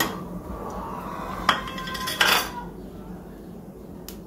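A metal spoon clinking on a ceramic plate and dishes: two sharp clinks with a short ring, the first at the start and the second about a second and a half in, then a brief scrape just after two seconds. A low steady hum lies underneath.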